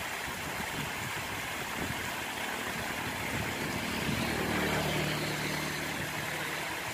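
A small engine running at a steady idle over a constant outdoor hiss, growing louder from about three seconds in and easing off near the end.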